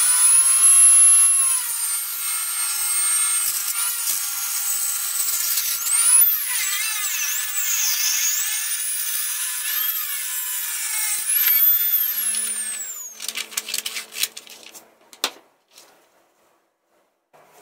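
Small table saw running with a high-pitched whine, its pitch dipping and recovering as the blade cuts through a thin wooden board. At about two-thirds of the way the pitch falls steadily as the saw is switched off and spins down, and a few light knocks and clatters follow.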